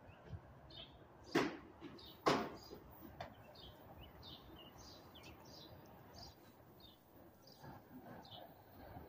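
Small birds chirping repeatedly in short high calls over faint low background noise. Two sharp, loud knocks come about a second and a half in and again a second later.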